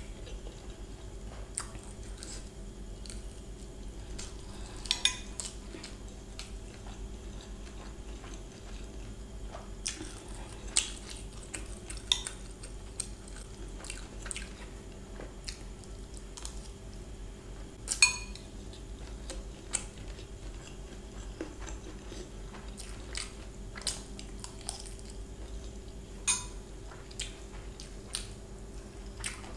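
Metal spoon clinking and scraping against a glass bowl while scooping fried rice, in scattered sharp clicks a few seconds apart, with quiet chewing between them. A faint steady hum runs underneath.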